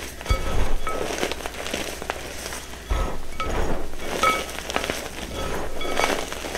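Hands crushing and squeezing crumbly reformed gym chalk in a bowl: irregular crunching and crumbling of chalk chunks and powder, with a few dull thuds and short squeaks of compressed chalk powder now and then.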